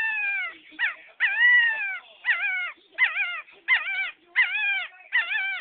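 A puppy howling: a run of about seven high howls, each rising quickly then falling away, some short and some held for most of a second.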